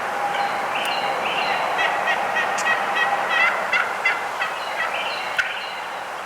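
Wild turkeys calling: a rapid run of short yelping and clucking notes that keeps going through the whole few seconds, with a few sharp clicks among them.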